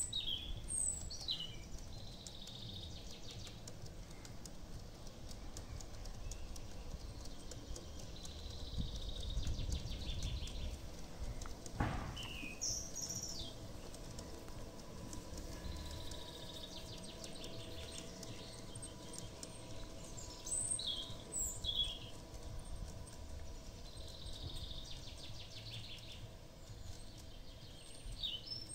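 LGB G-scale model train of Rhaetian Railway cars running round a garden-railway loop. Its wheels click rapidly over the track in stretches that come back every seven or eight seconds, and birds chirp now and then.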